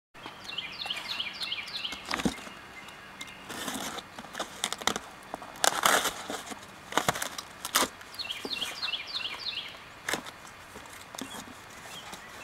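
Cardboard shipping box being handled and opened: rustling, scraping and a few sharp knocks, with a longer scrape about six seconds in. A songbird sings a quick run of repeated chirps twice, near the start and about two-thirds of the way through.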